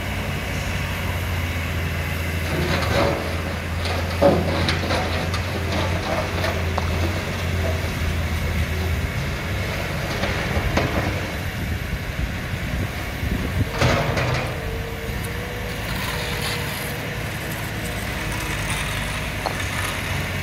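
Hyundai wheeled excavator working: its diesel engine runs steadily while the arm swings and digs. A few sharp knocks and clanks of the bucket and soil stand out, the loudest about four seconds in and another near fourteen seconds.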